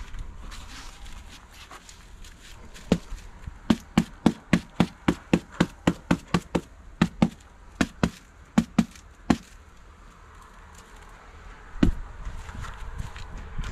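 A rapid run of sharp knocks, about three a second for some six seconds, then a single louder knock near the end.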